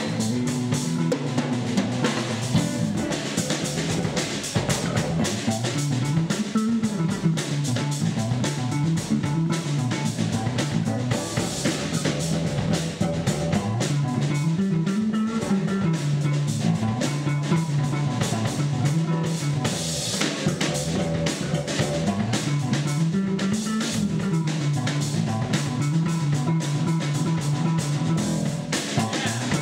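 A live band playing an instrumental: an electric bass plays a low melodic line that climbs and falls in a phrase repeating about every eight seconds, over a drum kit.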